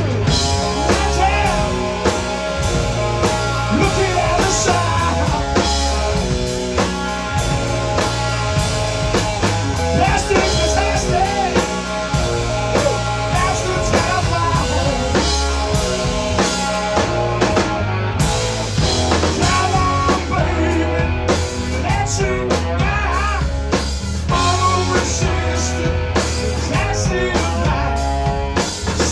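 Live rock band playing: a male vocalist singing over electric guitars and a full drum kit.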